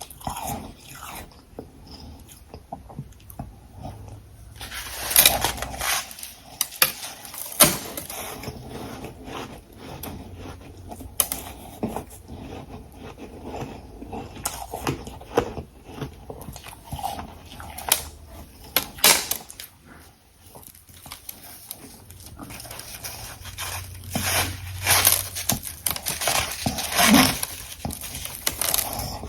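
Close-up crunching of hard refrozen ice and frost being bitten and chewed: irregular crisp crunches, with loud clusters of bites about five seconds in, around eighteen seconds, and again near the end, and softer chewing in between.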